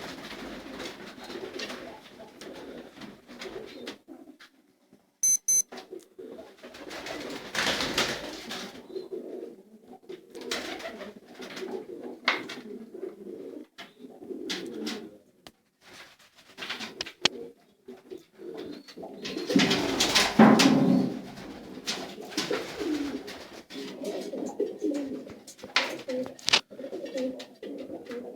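Domestic pigeons cooing repeatedly in an enclosed coop, with scattered rustles and knocks. A short beep comes about five seconds in, and a louder burst of noise comes about twenty seconds in.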